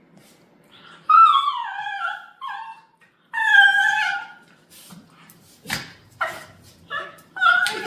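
Puppies play-fighting: two long whining yelps that fall in pitch, then a quick run of four or five short, sharp yips and barks near the end.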